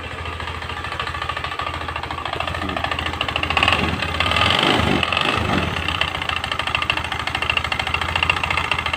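Honda Spacy scooter's single-cylinder engine idling with a harsh, rapid clacking, louder for a couple of seconds midway. The mechanic traces the noise to the cooling fan and flywheel magnet, and suspects a loose fan bolt or a loose magnet nut rather than the crankshaft or its bearing.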